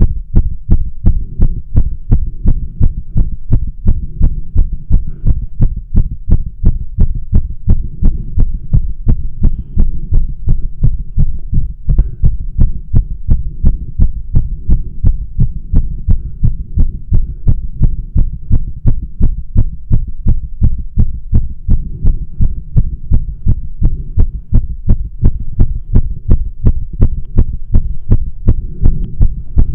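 A human heart beating fast, at a little over two beats a second, heard close up through a stethoscope chest piece fitted with a microphone. Each beat is a deep thump over a low steady hum. It is a resting tachycardia episode, with the heart pounding hard. A brief rustle of the chest piece comes near the end.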